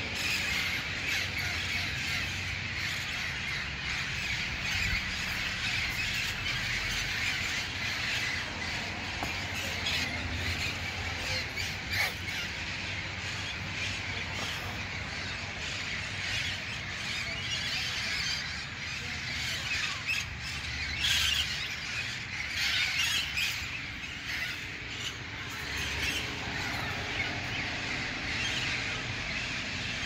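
A flock of feral parrots squawking as they fly overhead: many harsh, shrill calls overlapping without a break, a few louder ones about two-thirds of the way through.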